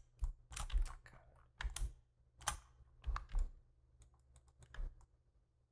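Computer keyboard keys being pressed in an irregular clatter of shortcut keystrokes, thinning out near the end.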